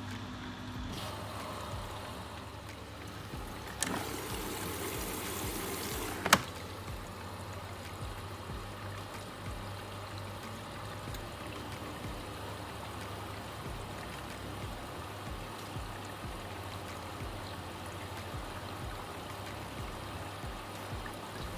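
Vestel washing machine mid-cycle: water trickling and sloshing in the drum over a steady low hum. Around four seconds in, a louder rush of water starts with a click and stops with a sharp click about two seconds later.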